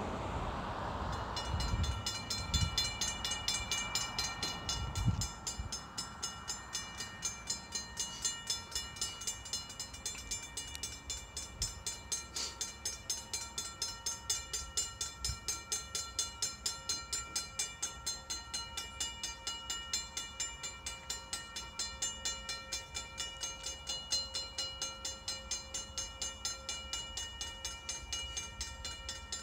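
Railroad crossing warning bell ringing steadily at about three strikes a second, still sounding just after the train has cleared. Low gusty rumble underneath in the first few seconds.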